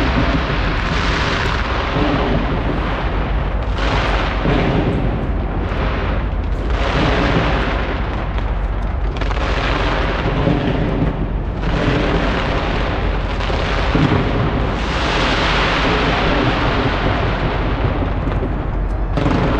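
Large fireworks display going off nonstop: shells bursting with booms and crackle in dense, overlapping waves.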